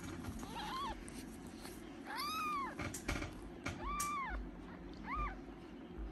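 Newborn kitten mewing four times: short, high-pitched arching cries, the middle two the longest.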